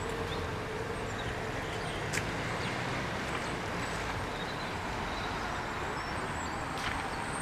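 Steady outdoor background noise: a low rumble of wind and distant traffic, with faint short high bird chirps and a couple of light clicks.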